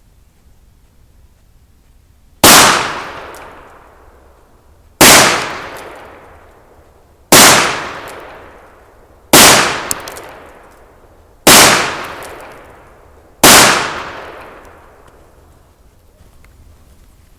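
Smith & Wesson Model 66-2 stainless revolver with a 4-inch barrel firing six rounds of 158-grain .357 Magnum, one shot about every two seconds, emptying the cylinder. Each very loud report echoes away over about two seconds.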